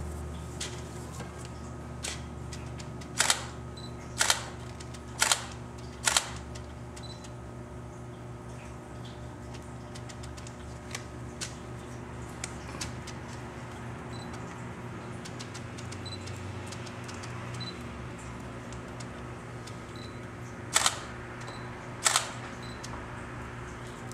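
Six sharp double clicks over a steady low hum: four about a second apart a few seconds in, then two more near the end.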